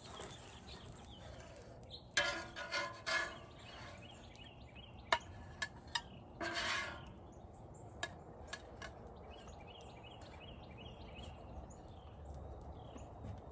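Utensils scraping and clicking against the griddle and plate while a sandwich is plated. There are scraping bursts about two and six seconds in and several sharp clicks, with faint bird chirps in the background.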